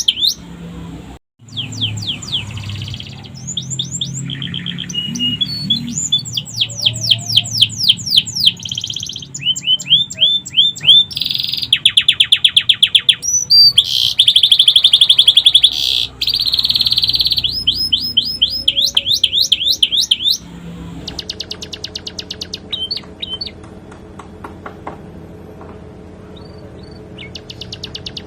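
Domestic canary singing in long runs of fast trills of repeated sweeping notes, broken by short pauses; its song is trained to include sikatan londo phrases. The song cuts out briefly about a second in.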